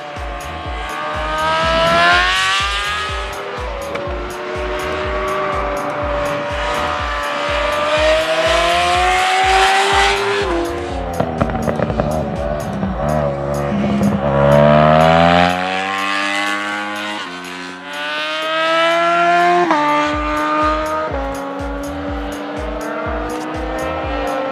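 Racing sidecar outfits' engines revving hard as they pass, the pitch climbing through each gear and dropping sharply at the upshifts, with more than one outfit heard in turn.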